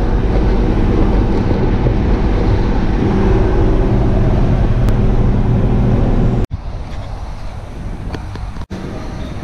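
A vehicle driving at highway speed: a steady engine drone and road noise, with wind on the microphone. About six and a half seconds in, it cuts off abruptly to a much quieter background with a few faint ticks.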